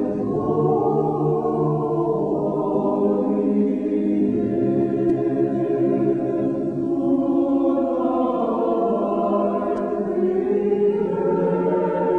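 A choir singing slow, held chords, the harmony changing every few seconds.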